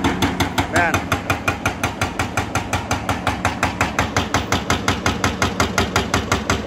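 Hydraulic breaker on a tracked excavator hammering concrete rubble: a rapid, even pounding of about eight blows a second, over the excavator's engine running.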